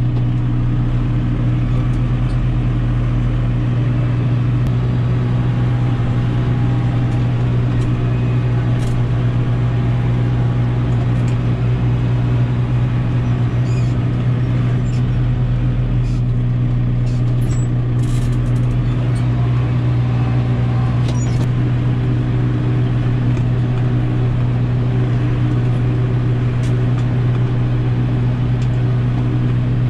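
Kubota M6040 tractor's diesel engine running at a steady idle, heard from inside the cab, with no change in pitch.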